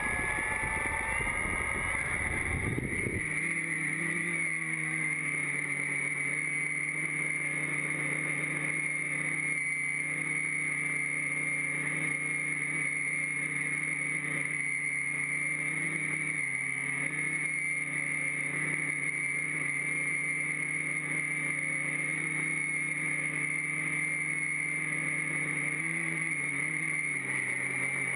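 Brushless motors and propellers of a quadcopter, heard from a camera mounted on its own frame. Over the first few seconds the motors spin up with a rough rumble and a rising whine. Then they run in a steady hum with a high whine on top, the pitch shifting slightly now and then in flight.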